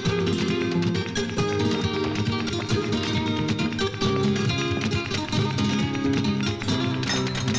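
Background music led by a rapidly plucked, flamenco-style acoustic guitar.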